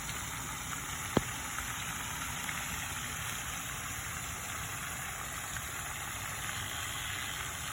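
Steady hiss of rain falling, with a single sharp click about a second in.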